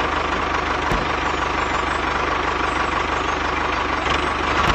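Tractor engine running steadily with a rapid, even chugging beat.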